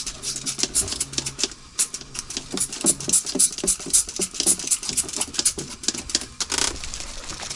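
Quick, irregular scratchy strokes of a brush scrubbing rust off a metal surface.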